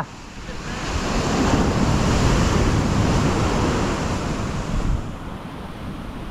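Ocean surf breaking and washing up the beach, swelling over the first two seconds and easing off after about five seconds.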